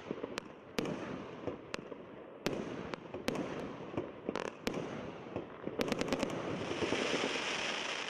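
Consumer fireworks cake, the 'Lovers' Hearts' multi-shot battery, firing: sharp bangs of bursting shots scattered every half second to second. About six seconds in comes a quick run of cracks, then a dense hiss near the end.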